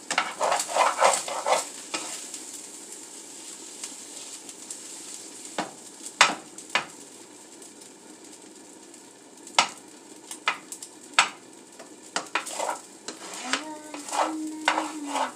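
Potatoes and mushrooms frying in a pan with a steady sizzle, stirred with a utensil: a run of scraping strokes at the start, scattered clinks against the pan, and more stirring and scraping near the end.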